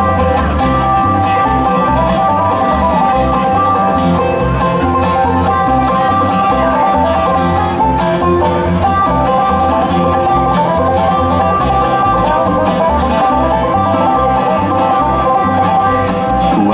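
Bluegrass band playing an instrumental break with no singing: banjo picking over guitar, with a steady bass line pulsing underneath.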